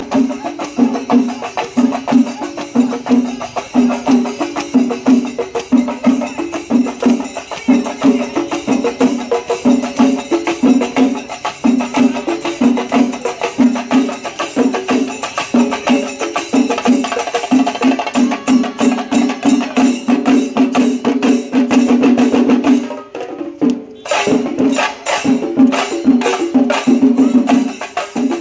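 Traditional Kerala temple percussion: an ensemble playing fast, dense drum strokes with cymbals in a steady rhythm. It thins out briefly about 23 seconds in, then resumes.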